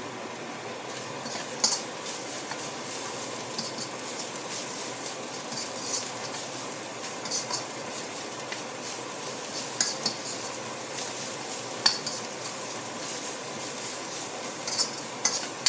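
Pounded lemongrass, garlic, dried chilli and black pepper frying in oil in a steel wok, a steady sizzle, with a metal spatula scraping and clinking against the pan every second or two as the paste is stirred. This is the paste being fried until fragrant.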